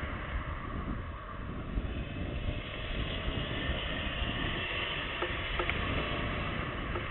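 Steady outdoor background noise: a low, fluctuating rumble with an even hiss over it.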